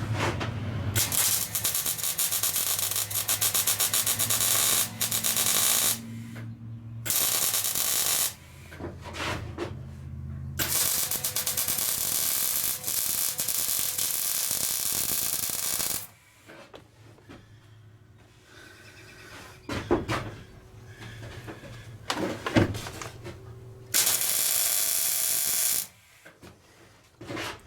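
MIG welder laying weld into a filed-out crack in red-hot mild steel: several bursts of crackling buzz, each a few seconds long, with short pauses between, and a couple of sharp knocks in a pause near the end.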